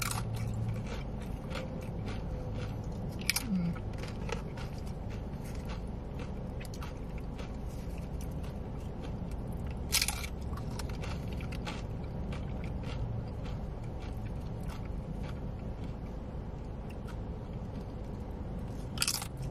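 Close-miked chewing and crunching of tortilla chips with dip, with a sharper crunch about three seconds in and again about ten seconds in.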